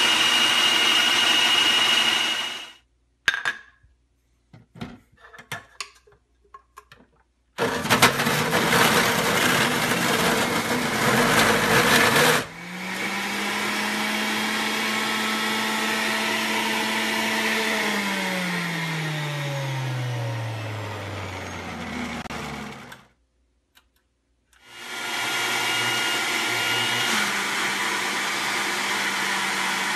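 Juiceman JM3000 citrus reamer running as an orange is pressed on it, then stopping, followed by a few scattered clicks and knocks. The centrifugal juicer then grinds carrots loudly for about five seconds, runs on with a steady hum, and winds down in pitch after being switched off. After a brief pause the blender attachment runs steadily.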